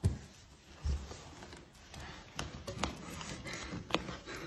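Handling noise from a wooden broom handle on a wooden floor: two dull thumps about a second apart at the start, then scattered light taps and clicks.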